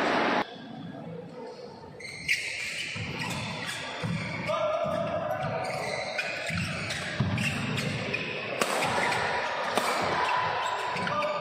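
Badminton doubles rally on an indoor court: several sharp racket strikes on the shuttlecock, short squeaks of players' shoes and the thud of footwork on the court floor. It opens with a loud rush of noise that cuts off suddenly in the first half second.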